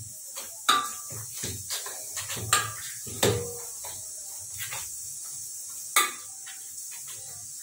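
Wheat-flour dough being kneaded by hand in a steel bowl: irregular pressing and slapping, with the bowl knocking and clinking against the counter a few times, the sharpest knocks about a second in, around two and a half and three seconds, and at six seconds.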